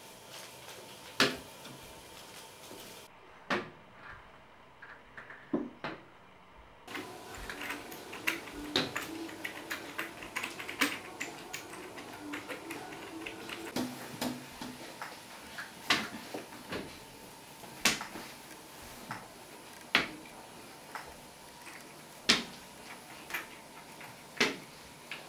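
Irregular sharp taps and knocks in a quiet room, a few louder ones every second or two.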